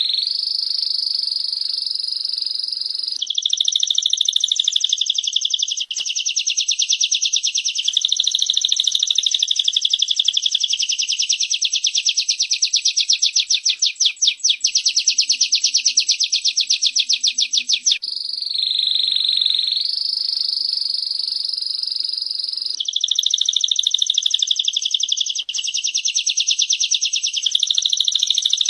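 Female prenjak (prinia) and canary calling together in an unbroken high-pitched chorus. Through the middle runs a long, fast rattling trill.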